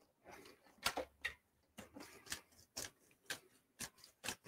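Light, even taps about twice a second, starting about a second in: the monkey shadow puppets being bounced on their cut-out puppet bed.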